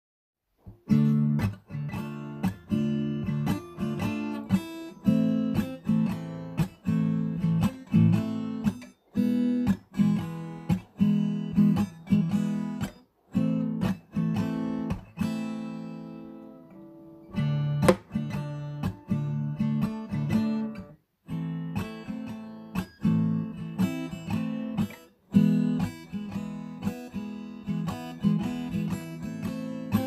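Background music: acoustic guitar, plucked and strummed, with a few short breaks between phrases.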